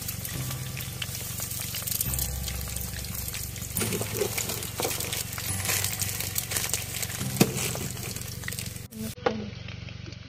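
Eggs frying in oil in a nonstick wok on a portable gas stove, sizzling, while a plastic spatula stirs and scrapes them with many small clicks against the pan. About nine seconds in the sound breaks off and comes back duller and quieter.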